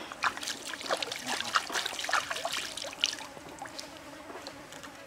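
Hands rinsing a squid in stream water: irregular splashes and drips, busiest in the first three seconds, over the steady trickle of the running stream.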